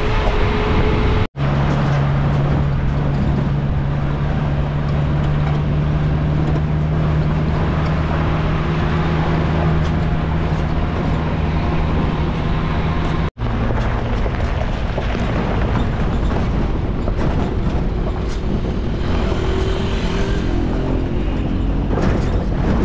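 Steady motor-vehicle running noise with a low engine hum, broken by two brief silent gaps, one about a second in and one a little past the middle.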